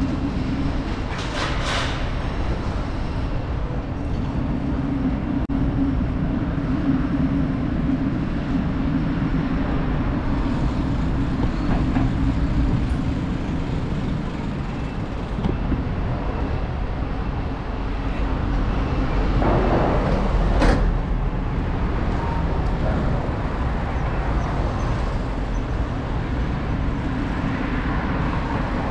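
Street traffic noise heard from a moving bicycle: a steady low rumble of vehicles, with a short sharp click about twenty seconds in.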